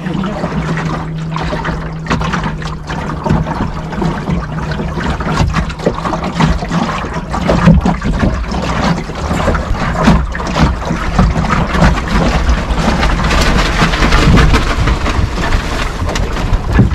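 Water slapping and gurgling against the hull of a small Puddle Duck Racer sailboat under way, heard from inside the hull as a dense run of irregular splashes, with a rushing hiss that grows stronger after about twelve seconds.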